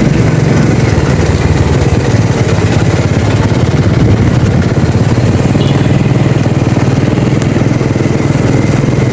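Small motorcycle engine running steadily while riding along a road, with a low even hum.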